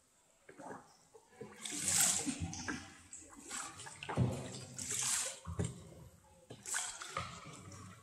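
Boat paddle strokes in water: a few splashes and sloshes as the blade dips and pulls through, about one every two seconds.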